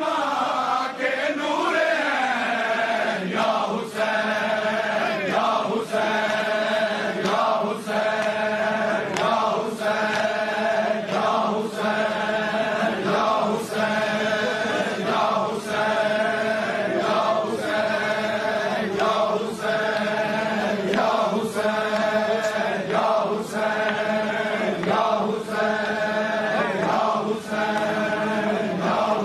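A large crowd of men chanting a Shia mourning chant (noha) in unison, with a sharp beat about once a second from a few seconds in.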